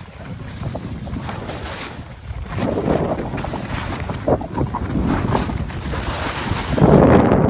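Wind buffeting a phone microphone while skiing downhill, mixed with the hiss and scrape of skis on packed snow. It gets louder and gustier about two and a half seconds in.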